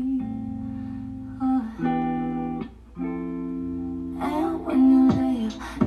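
Background music: a guitar holding chords that change every second or so, with a busier beat and vocal-like parts coming in about four seconds in.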